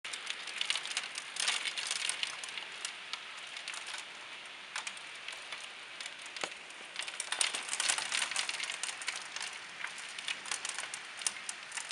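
Small hailstones falling on potted plants, many sharp little clicks off leaves, soil and the pot rims over a steady hiss, thicker in a few short spells.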